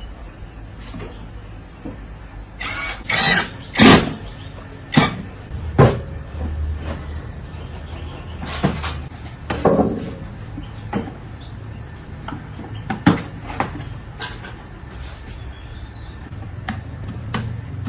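Irregular knocks, clicks and scraping sounds of objects being handled, loudest in two clusters about three to six seconds in and again near the middle, over a low steady hum.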